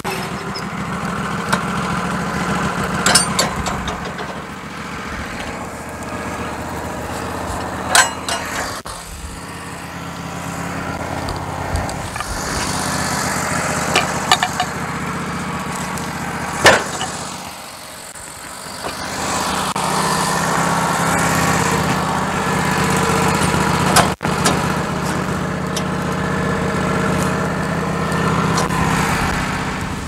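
Wood-Mizer LT15GO sawmill's engine running steadily without cutting, its note dipping briefly a little past the middle before picking back up. Several sharp knocks of a heavy pine cant being tipped and turned on the steel bed.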